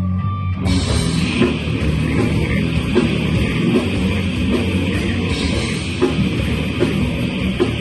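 A heavy metal band playing live and loud. A low riff plays on its own at first, then a little over half a second in the full band comes in with drums and cymbals and keeps playing.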